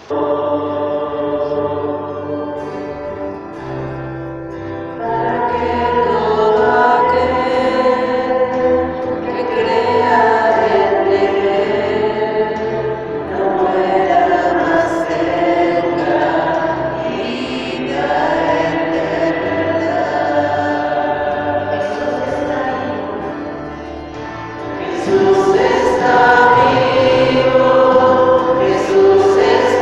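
A choir singing a slow devotional hymn in long held notes, starting suddenly and swelling louder near the end.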